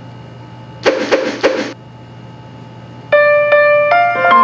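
Short phone notification-tone previews. About a second in come three quick hissy pulses; from about three seconds a short run of clear electronic notes steps upward in pitch.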